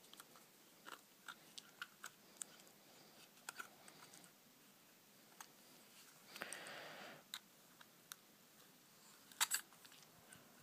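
Faint small clicks and light scrapes of a thin pry tool working the metal frame loose from a TomTom XL GPS's plastic-and-rubber casing. A brief rustling rub about six seconds in as the unit is turned in the hand, and two sharper clicks close together near the end.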